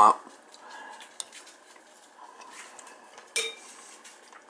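Spoon tapping against a soup bowl: a few faint clinks, then one sharper, louder clink with a short ring about three and a half seconds in.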